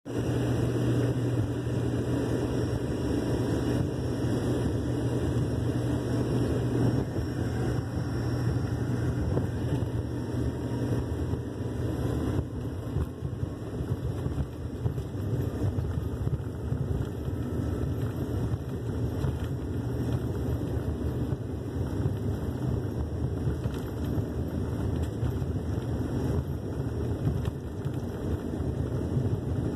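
Airliner cabin noise as the plane rolls along a wet runway: jet engines running with a steady low hum and rumble.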